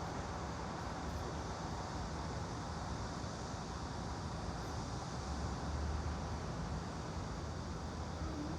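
Steady, even background hiss with a low rumble and no distinct events; a cat begins to meow right at the end.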